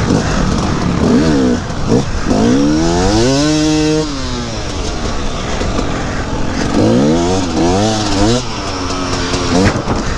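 2011 KTM 250 EXC two-stroke enduro engine revving up and down under throttle as the bike rides over dirt mounds and logs: one long rise and fall about a third of the way in, then a run of quick blips near the end.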